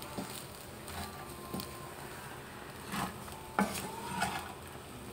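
Wooden spatula stirring and turning rice in a nonstick frying pan, with a few scrapes and knocks against the pan, the loudest about three and a half seconds in.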